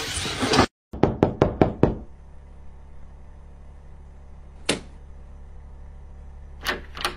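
A short burst of noise, then a quick run of about six sharp knocks on a door within one second, followed by a low steady hum and a few single clicks near the end.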